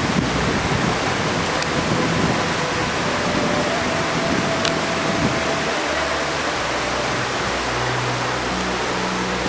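A burning pile of paper offerings: the flames make a steady rushing noise, with a faint tick now and then.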